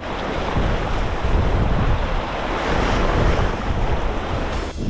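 Wind buffeting the microphone hard, over the steady rush of waves, aboard a sailing yacht under sail in about 15 knots of wind.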